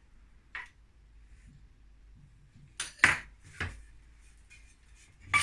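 Metal kitchen utensils knocking and clattering on the work surface: a handful of short, sharp clicks, the loudest about three seconds in and another near the end, as a pastry wheel is set down and a steel bench scraper picked up.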